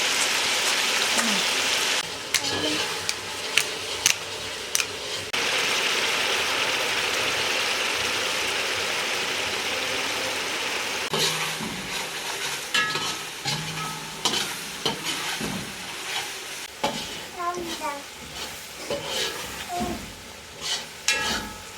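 Food sizzling in hot oil in a cooking pot, a steady hiss that cuts out and returns. In the second half, a utensil stirs and scrapes against the pot with scattered clicks.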